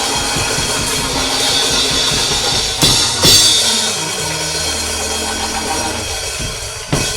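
Live church band music: a drum kit with cymbal washes and crashes, the loudest hits about three seconds in and again near the end. Held low notes join about halfway through.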